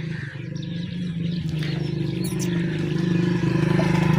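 A motor engine running with a steady hum, growing steadily louder.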